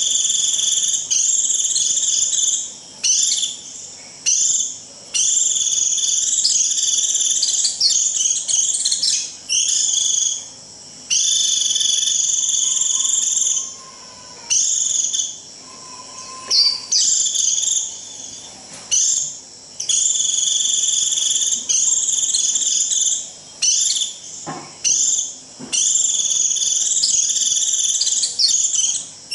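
White-eye (vành khuyên) giving its 'rít' flock call: a shrill, buzzy, high trill repeated in bursts of one to three seconds with short breaks between them. This is the call used to draw in a flock of white-eyes.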